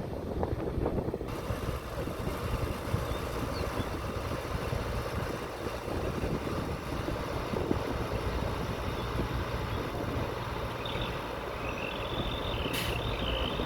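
Diesel engine of earthmoving equipment running steadily with a low rumble. Near the end a high whine joins in, and there is one sharp click.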